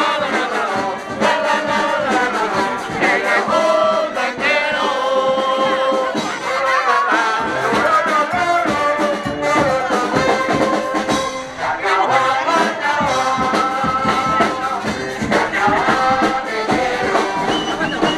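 Loud parade music with brass instruments and some singing, playing without a break.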